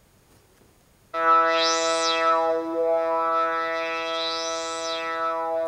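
A held note on the KORG iMS20 synthesizer app starts about a second in, with its low-pass filter cutoff swept by a knob on the M-Audio Keystation Mini 32 MIDI controller. The tone brightens and darkens twice as the cutoff rises and falls.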